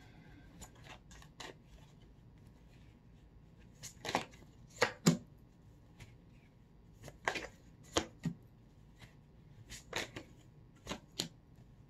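A deck of tarot cards being shuffled by hand: faint flicking with sharp card snaps coming in three clusters, with quieter handling between.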